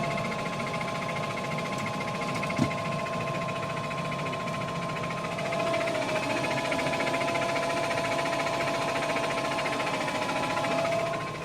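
Diesel engine of a farm machine running steadily, with a steady high whine over the rumble; a single sharp click about two and a half seconds in.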